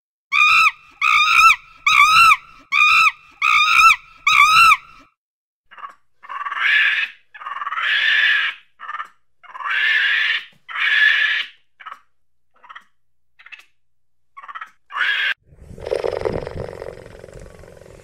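Macaques calling: a quick run of seven short, arched, honk-like calls, then a stretch of harsher screeching calls, some short and some about a second long. Near the end a low rumbling animal growl begins.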